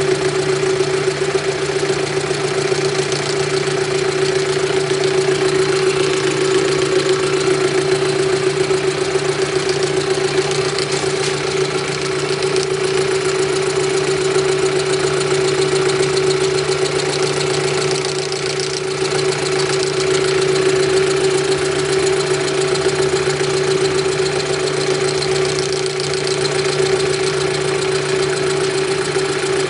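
Drill-mill machine running steadily: a constant motor hum with a hiss above it, even in level throughout.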